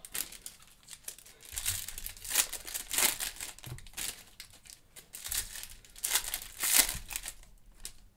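Foil trading-card pack wrappers crinkling in fits and starts as they are handled and torn open.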